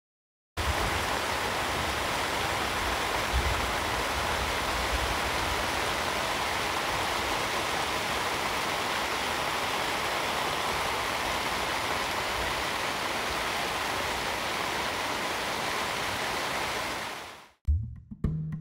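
Steady rain pattering on a tent, heard from inside: an even, unbroken hiss with a low rumble underneath. It cuts off shortly before the end.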